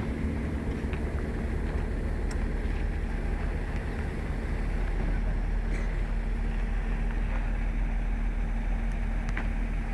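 Caterpillar 980H wheel loader's six-cylinder diesel engine idling, a steady low hum.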